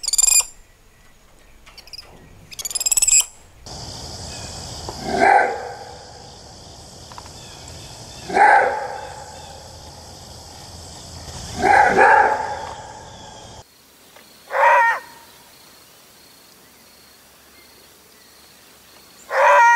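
A spider monkey gives a couple of short, high-pitched calls. Then a maned wolf gives five loud roar-barks, each about half a second long and a few seconds apart.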